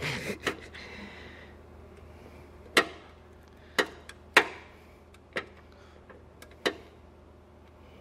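About six sharp metallic clicks and taps, irregularly spaced roughly a second apart, from a hand wrench working against metal on a 2006 Saturn ION's 2.2L engine as the engine is turned over by hand. A short rustle comes at the start.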